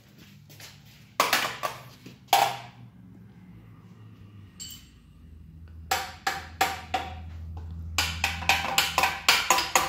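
Small hands knocking and banging on the drawers of a steel rolling tool chest: sharp metallic knocks and rattles in short runs, a few at first, then coming quickly, about three or four a second, near the end.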